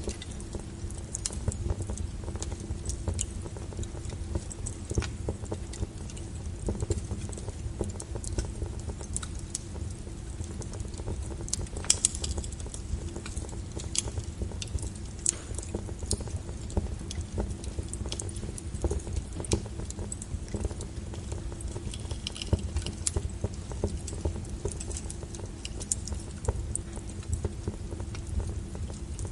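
Wood fire crackling, with irregular sharp pops and snaps over a steady low rumble of the flames; a louder cluster of pops comes about twelve seconds in.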